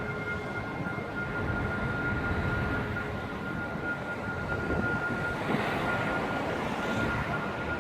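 Ear-piercing steady electrical whine from Christmas street lights, a single held tone over constant city rumble. A second, higher tone fades out about three seconds in.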